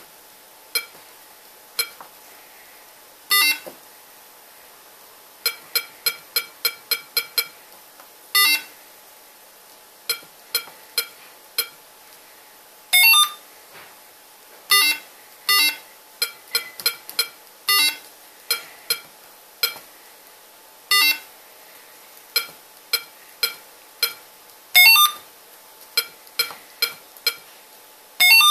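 Arduino keypad combination lock beeping through a bare loudspeaker: a short electronic beep with each press of the membrane keypad, in quick runs of keypresses, with a few longer, louder tones in between.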